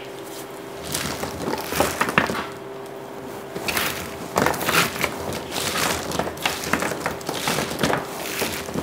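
Hands rubbing soft duck fat and tossing raw sweet potato fries on a parchment-lined metal sheet pan: irregular rustling, squishing and light knocking of the fries, starting about a second in.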